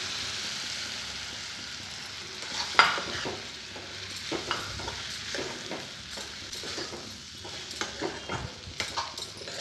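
Vegetables sizzling in oil in a metal kadhai while semolina (sooji) is stirred in with a metal spoon. The spoon scrapes and knocks against the pan in irregular strokes, which come more often in the second half.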